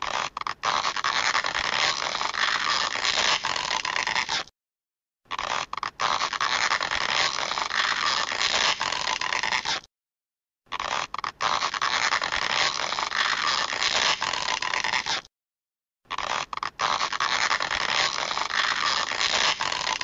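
Stretching sound effect: a noisy sound with a few clicks, about four and a half seconds long, played four times over with short silent gaps near five, ten and fifteen seconds in.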